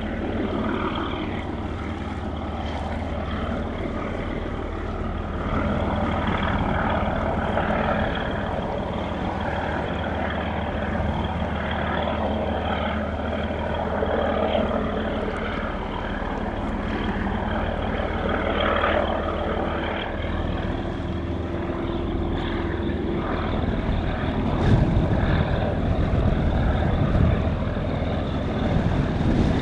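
Steady low engine drone with a noisy outdoor layer over it. A faint steady hum joins for a few seconds past the middle, and the sound grows a little louder near the end.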